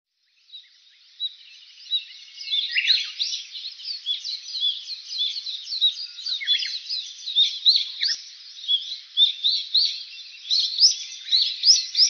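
Many small birds chirping and chattering at once: a dense, continuous stream of short high chirps.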